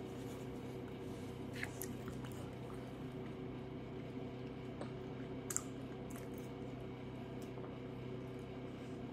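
Close-up eating sounds: a metal spoon clicking and scraping in a paper cup of chili, with quiet chewing, a few sharp clicks, the loudest about five and a half seconds in. A steady low hum runs underneath.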